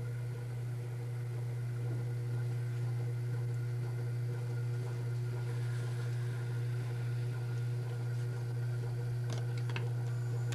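A steady low hum at an unchanging level, with a few faint clicks about nine to ten seconds in.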